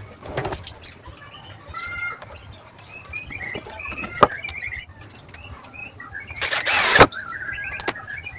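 Small birds chirping repeatedly in the background, with scattered clicks and knocks and a brief loud rasping noise that ends in a sharp click about seven seconds in.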